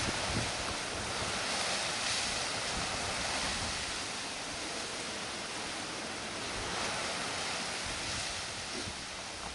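Steady rushing of wind and distant surf, swelling and easing every couple of seconds, with low wind buffeting on the microphone near the start.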